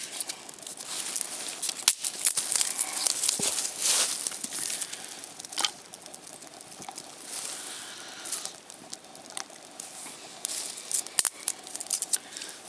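Small dry twigs and bark handled and laid onto a smouldering tinder bundle: dry rustling and crinkling, broken by a few sharp cracks.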